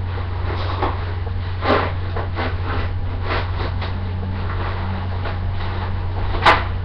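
Light knocks and clatter of things being handled at a kitchen counter, the loudest knock about six and a half seconds in, over a steady low hum.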